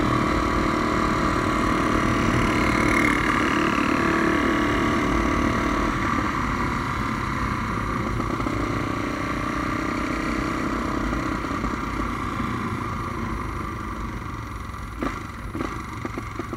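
Honda Tornado motorcycle's single-cylinder engine, built up to 350 cc, running steadily under way with road and wind noise. It slowly gets quieter, and a few short, sharp cracks sound near the end.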